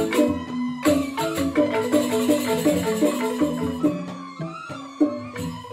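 Joged bumbung gamelan music: bamboo xylophones struck in quick, dense runs of pitched notes, with light rattling percussion. The playing thins out after about four seconds.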